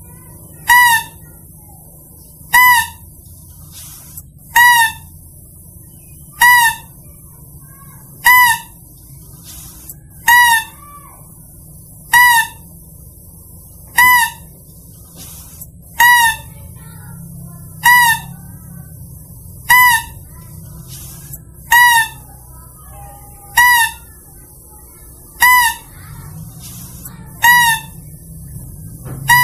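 Mouse-deer lure call (pikat pelanduk): a short pitched call with a quick bend, repeated at a steady beat about once every two seconds, about fifteen times, over a faint low hum.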